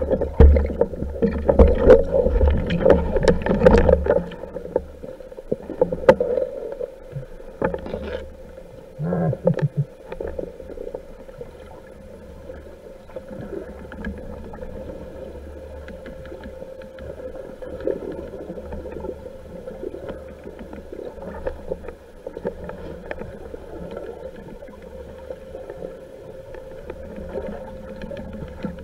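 Muffled underwater water movement and bubbling heard through an action camera's waterproof housing, over a low rumble. It is busiest, with churning and knocks, in the first four seconds, with another short burst near 9 s, then settles to a steadier wash.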